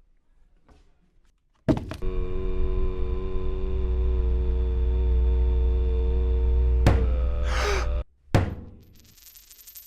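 An electric appliance switched on with a click and running with a steady, loud hum for about six seconds, then cutting off suddenly, followed by another click.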